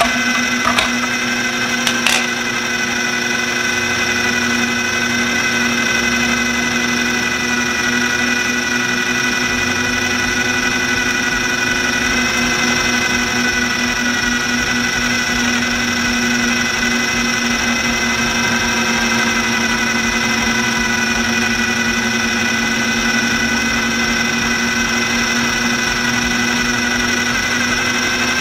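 Electric food processor motor running steadily at one speed, chopping and blending basil pesto, with a couple of sharp clicks in the first two seconds.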